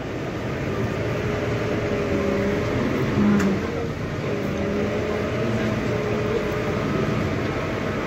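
Steady machinery noise of a crane's engine running as it lifts and positions a load, with a low hum whose pitch shifts slightly.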